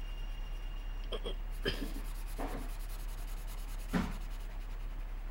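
Felt-tip marker rubbing and scratching on paper while colouring, with a few soft taps and one sharper knock about four seconds in. A steady low hum runs underneath.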